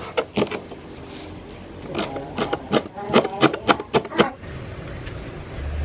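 Kitchen knife cutting on a plastic chopping board: a few cuts through tomato at the start, then a quick run of even chopping strikes, about four or five a second, through a pile of leafy herbs.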